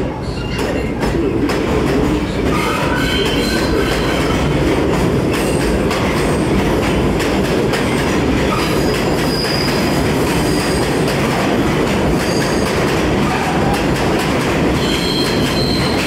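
New York City 6 subway train pulling out of an underground station and running past along the platform: a steady loud rumble of steel wheels on the rails, with short high wheel squeals scattered through it.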